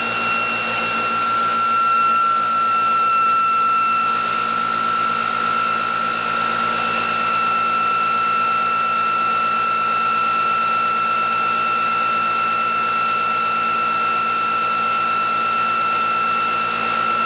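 Bench-mounted electric drive motor and rotor of a motor test rig spinning at steady speed: a steady high whine with overtones over a low electrical hum and a hiss.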